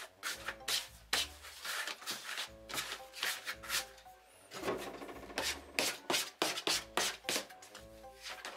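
Hands pressing and rubbing soft, sticky bread dough on a counter, a run of irregular rubs and pats as the risen dough is knocked back, over light background music.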